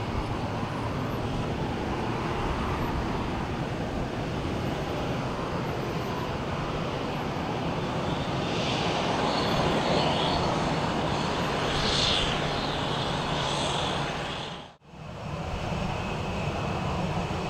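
Jet airliner engines running, a steady rumble and hiss that swells a little in the middle and drops out abruptly near the end.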